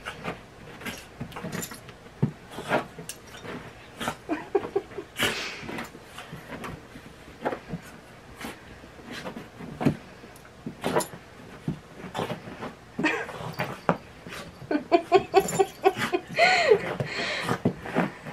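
Wet dog rolling and wriggling on her back on towels over carpet, rubbing herself dry: irregular scuffling and soft thumps of fur against cloth, with a few short pitched vocal sounds, most of them near the end.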